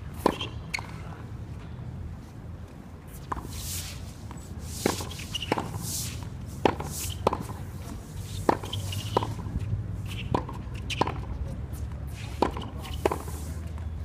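Tennis ball struck back and forth by racquets in a close-range volley drill: sharp pops in short runs about half a second apart, over a steady low rumble.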